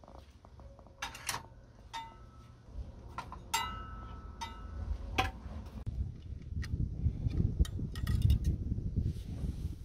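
Clicks and metallic clinks of garden tools being handled on a metal wall rail, a few of them ringing briefly. From about five seconds in a low rumble joins, with more clicks as a steel bracket and wire basket are handled.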